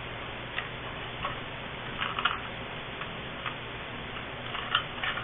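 Scattered light clicks and taps, irregular and a second or so apart, over a steady background hiss: small wiring parts being handled.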